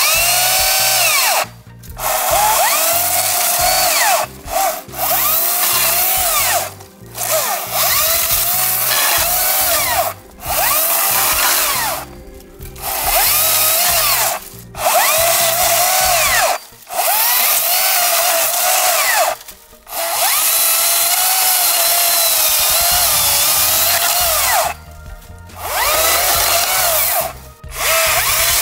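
Makita MUC019GZ 40V cordless chainsaw switched on and off about ten times in a row, cutting through the stems of a winged spindle shrub. Each burst is a high electric-motor whine with chain noise, and the whine dips in pitch as the chain bites into the wood.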